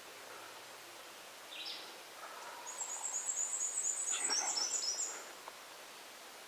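Wild birds calling in the woods: a fast run of thin, very high songbird notes from about three seconds in, over a lower rhythmic call that swells and fades over the same stretch.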